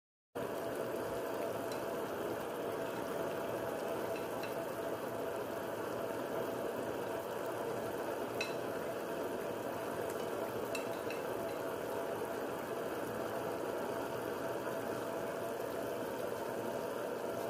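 Pan of marinated pork pieces and onion rings bubbling and sizzling steadily, with a few small pops. It cuts in just after the start.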